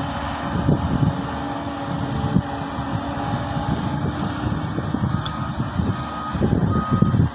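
Hydraulic excavator's diesel engine running under load as it digs, a steady rumble with irregular surges. Faint short beeps repeat at an even pace from about five seconds in.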